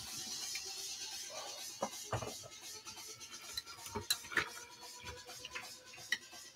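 A metal spoon scraping and tapping against a bowl as it works a mix of mashed potato and ground beef, with a few short clicks scattered through.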